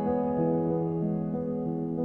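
Slow, soft background keyboard music with notes held and changing only now and then.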